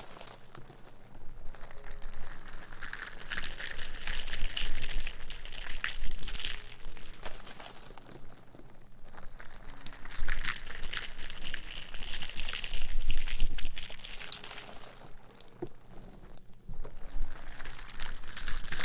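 Close-miked crinkling and rustling, rising and falling in waves every few seconds.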